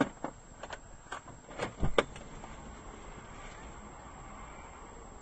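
Several sharp, irregular clicks and knocks in the first two seconds, then only the steady low hum of a stationary car's cabin and the street around it.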